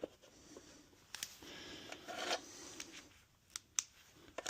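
Faint scraping and rubbing on a thin brass sheet, lasting about two seconds, with a few light clicks around it.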